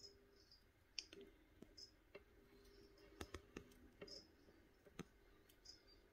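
Quiet terrarium sound: a feeder cricket gives short, faint, high chirps now and then, with scattered sharp clicks and a faint steady hum underneath.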